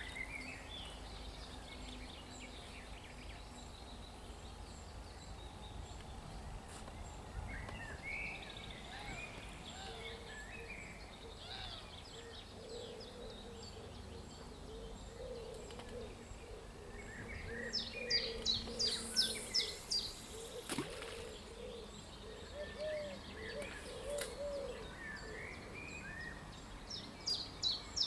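Several birds singing and calling in the surrounding trees, loudest at a run of rapid, repeated high notes about two-thirds of the way through. Lower calls sound on and off over a steady low outdoor background.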